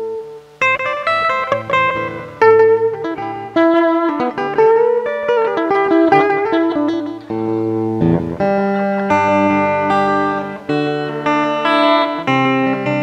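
Guitar playing picked notes and chords, each ringing on, with reverb from the mixer's built-in effect added.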